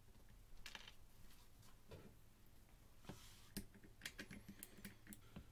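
Faint, scattered light clicks and ticks of a hand screwdriver turning screws into a router's plastic motor cap during reassembly.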